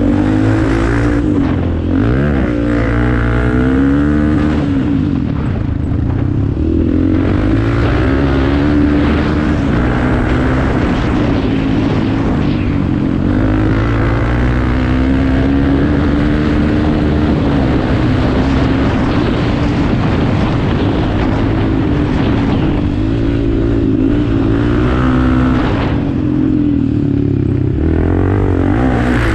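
Off-road motorcycle engine running hard, its pitch rising and falling again and again as it revs and shifts through the gears.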